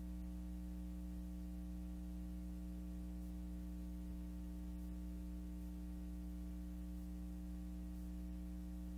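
Steady electrical hum with a faint hiss underneath, unchanging throughout; no other sound.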